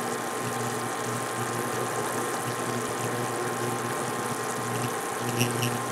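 Sugar syrup at a rapid boil, bubbling in a saucepan on its way to the hard-crack stage, over the steady hum of a portable electric cooktop. A few light clicks come near the end.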